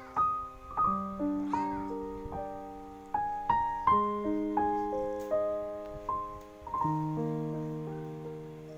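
Background piano music: a slow melody of single struck notes, each ringing and fading.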